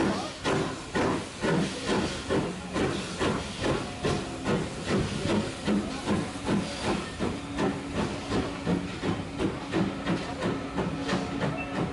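Steam tank locomotive 41298, an Ivatt Class 2MT, pulling its train of coaches away from the platform: its exhaust chuffs in an even rhythm of about two to three beats a second over a steady hiss of steam.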